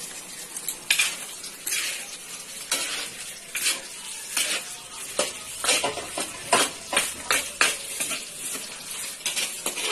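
Metal ladle scraping and clinking against a large metal wok, stirring diced meat and carrots in sauce, in irregular strokes over a steady sizzle.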